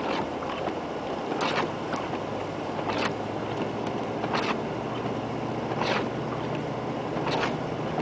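1997 Land Rover Discovery running steadily through deep snow, heard from inside the cabin. A short swish comes about every second and a half from the windshield wipers sweeping.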